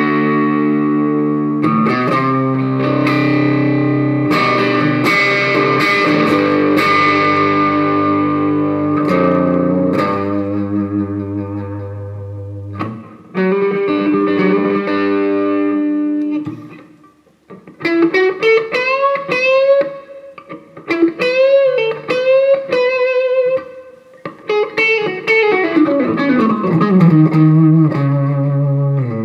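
Gibson Les Paul Custom electric guitar through a Bugera V5 tube amp on a crunchy, lightly overdriven setting. Held, ringing chords are let sustain for the first half. After a short break, single-note lead phrases with string bends and vibrato follow, ending in a descending run.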